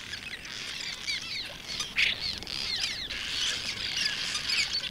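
Colony of cliff swallows calling at their mud nests: many short, squeaky chirps overlapping one another, with a brief burst of rushing noise about two seconds in.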